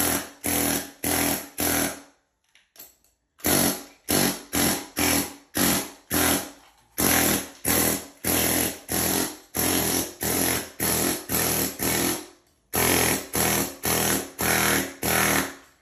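Husky pneumatic air hammer with a chisel bit chipping hardened concrete off a concrete floor. It fires in short bursts, about two a second, as the trigger is pressed and released, with a pause of about a second near the two-second mark.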